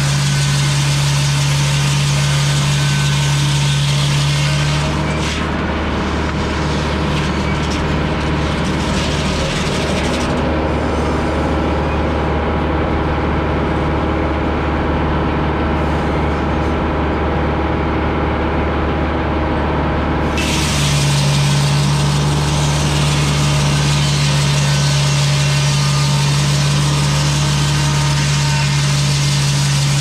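GM 4-71 two-stroke diesel engine driving a Frick sawmill's large circular saw. It runs steadily. From about five seconds in, its note changes under load while the blade cuts a cedar log, and about twenty seconds in it goes back to its steady note.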